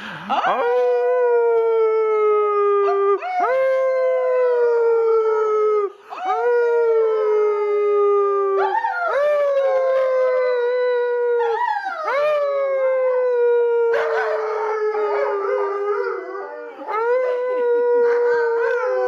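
A pet dog and people howling together: a string of long howls, each swooping up at the start and then sliding slowly down, several voices overlapping at times.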